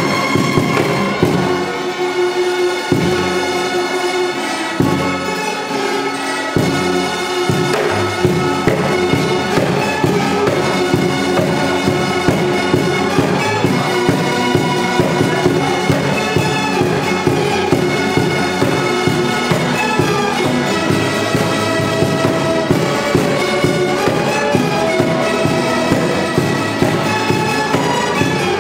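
Rondalla string ensemble playing an instrumental pop arrangement: bandurrias and other small steel-strung mandolin-type instruments carry held melody notes over acoustic guitars and an upright double bass. The low notes start and stop a few times in the first seconds, then settle into a steady beat.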